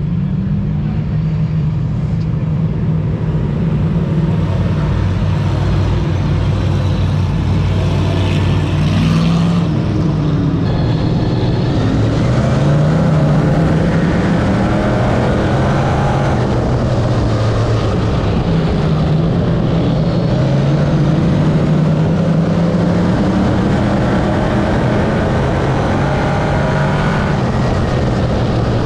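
Dirt modified race car's GM 602 crate V8 engine running at a slow, even pace, its note rising and falling a little with the throttle.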